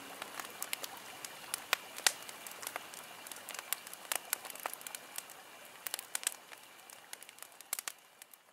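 Wood fire crackling: scattered sharp pops and snaps over a faint steady hiss, slowly fading away toward the end.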